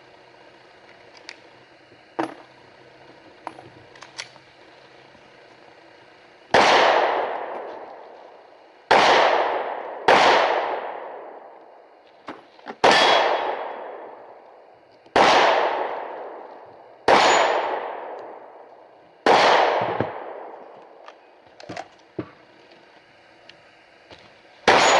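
Eight rifle shots from an AR-15 fitted with a .22LR conversion kit, fired singly one to three seconds apart, each trailing off in a long echoing decay. A few faint clicks come before the first shot.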